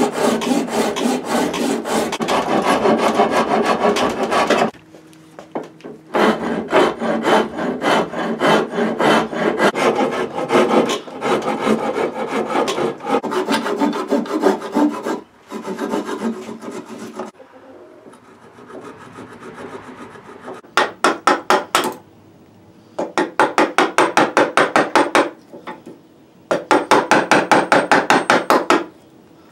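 Steel file rasping across a walnut gunstock in runs of quick back-and-forth strokes, with short pauses between the runs. The runs grow shorter near the end.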